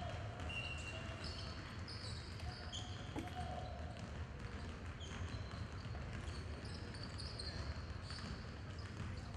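Background hubbub of a crowd in a large indoor hall over a steady low rumble, with scattered short high-pitched squeaks.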